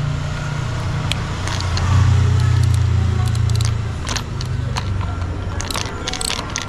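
A low vehicle engine hum swells about two seconds in and then fades. Over it come scattered small clicks and crackles from the speedometer's plastic parts and screws being handled, thickening near the end.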